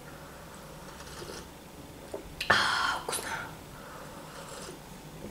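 A person slurping a sip of drink from a mug: one short slurp about two and a half seconds in, then a second, weaker one just after.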